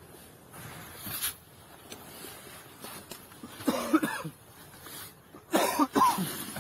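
A sharp click about a second in, then a person's voice sounding twice in short bursts, once around four seconds in and again near the end, the second louder.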